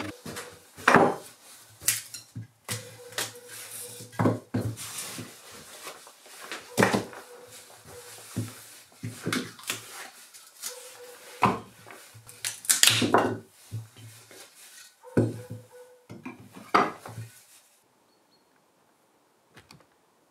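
Irregular knocks and clatter of hard objects being handled and set down, with a low hum in the gaps between some of them. It stops about seventeen seconds in.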